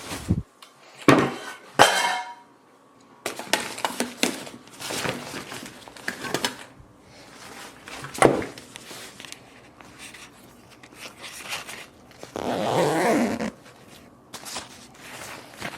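Camping gear being packed into a carry bag by hand: irregular rustles, knocks and light clinks of objects going in, with a longer rasping sound about twelve seconds in.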